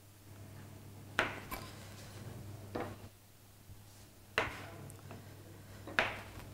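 Kitchen knife slicing button mushrooms on a cutting board: four sharp knocks of the blade striking the board, about one and a half seconds apart, over a faint steady hum.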